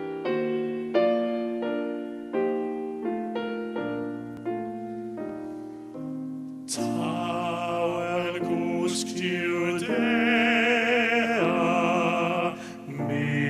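Slow piano introduction to a carol, single notes and chords struck and left to fade; about halfway through a solo male tenor voice enters, singing sustained notes with a wide vibrato over the piano accompaniment.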